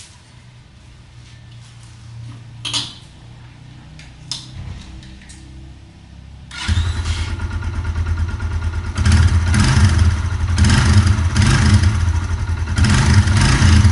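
A couple of clicks, then about halfway through a Suzuki motorcycle engine starts and runs, its revs rising a few times as the throttle is blipped. The engine has just been reassembled and serviced.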